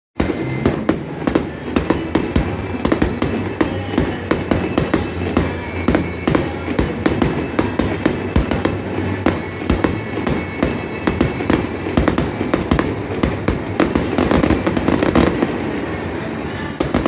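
Fireworks going off: a fast, continuous run of sharp pops and crackles, several a second and uneven in loudness.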